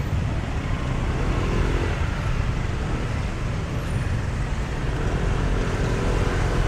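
Motorbike and car traffic passing close by on a city street: a steady mix of small engines and tyre noise, with the hum of a passing engine rising a little about a second in and again near the end.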